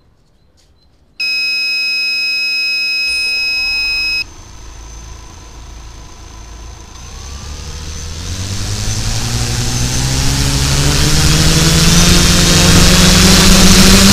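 A loud steady electronic tone for about three seconds, then a quadcopter drone's motors spinning up. The propeller hum rises steadily in pitch and grows louder toward the end.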